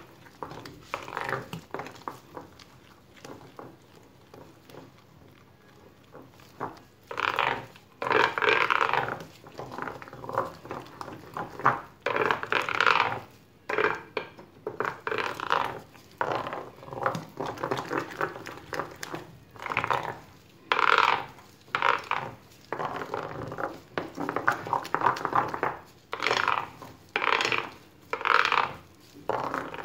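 Wooden spoon stirring a thick batter in a glass bowl: a run of stirring strokes, faint for the first several seconds, then louder and regular, about one stroke a second.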